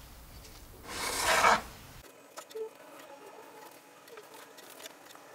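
A short rasping scrape about a second in, the baking tray sliding, then faint clicks and a soft whirr from an electric convection oven running.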